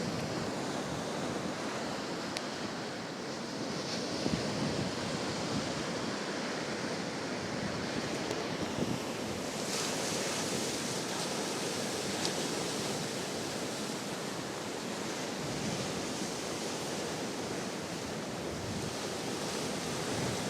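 Big ocean waves breaking as a steady rushing surf, with wind blowing on the microphone.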